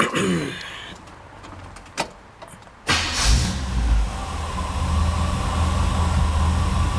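1957 Chevrolet engine starting on its newly installed wiring harness: a click, then a little under three seconds in it fires and catches at once, revs briefly and settles into a steady idle.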